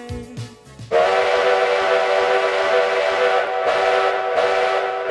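A freight locomotive's air horn sounding one long, steady chord of several notes, starting abruptly about a second in. Before it, the tail of background music.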